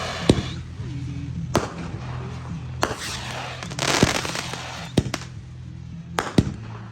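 200 g consumer firework cake firing its shots: about seven sharp reports roughly a second apart, the last two close together, several trailed by a crackling, whizzing spray as the effects break.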